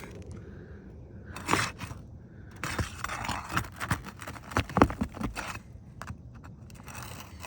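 Steel roofing flat bar scraping and prying under asphalt shingles, with irregular knocks and a rough scraping stretch. The aged shingles are too brittle to hold, so they tear around the nails instead of releasing them.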